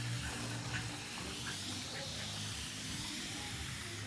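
Garden hose spray nozzle hissing steadily as water sprays out, with a low steady hum underneath.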